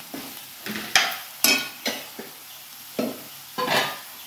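A metal spatula scraping and knocking against a metal wok as onions and spice powder are stirred and fried, about six sharp strokes, some ringing briefly, over a faint sizzle.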